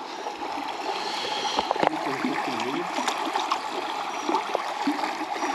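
Shallow, fast river rushing over stones: a steady water noise with small ticks and splashes.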